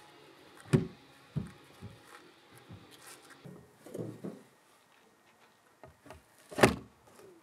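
A few scattered knocks and thumps: one loud knock less than a second in, smaller ones after it, and the loudest knock near the end.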